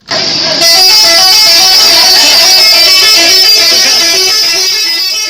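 Multi-tone 'telolet' bus horn playing a fast, repeating melody over music. It cuts out for a moment at the start and comes back loud about two-thirds of a second in.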